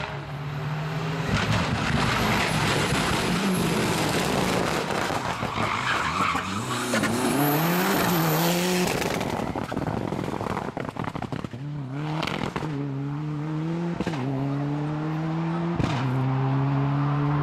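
Mitsubishi Lancer Evolution rally car driven hard on tarmac, its tyres scrubbing and skidding through the turns. After the midpoint the engine revs up repeatedly with short breaks between, like rapid gear changes under acceleration.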